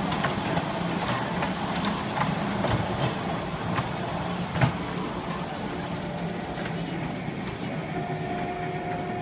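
Miniature kiddie train ride rolling past on its narrow track: a steady low hum with scattered short clicks.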